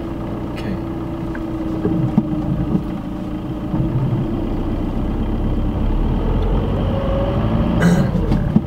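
Car engine and road noise heard from inside the cabin as the car pulls away from a stop and picks up speed, growing louder about halfway through. A short knock near the end.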